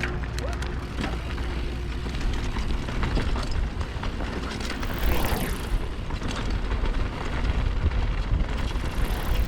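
Mountain bike descending a rough dirt trail: wind buffeting the microphone, tyres on dirt, and a steady clatter of chain and frame rattles, louder from about halfway.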